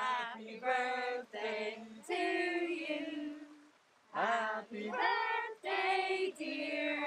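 Women and children singing together in a group, unaccompanied, in long held notes.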